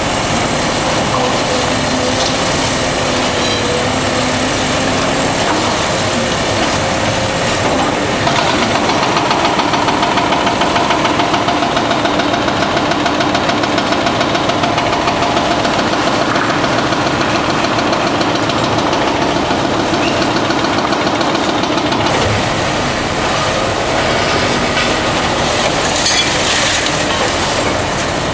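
Hydraulic demolition excavators working a rubble heap. Their diesel engines run steadily under load, and several whining tones drift slowly up and down in pitch. Broken concrete and steel rebar clatter and crunch against the buckets throughout.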